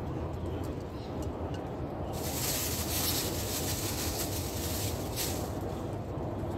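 Rustling and scraping of orchids and potting material being handled during repotting, with a couple of louder rustles a couple of seconds in and again near the end, over a steady low rumble.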